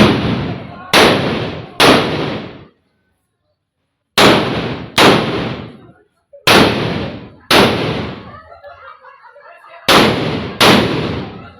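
Firecrackers going off: nine loud bangs, mostly in pairs about a second apart, each with an echoing tail. Faint voices come in a lull between bangs, a little after the middle.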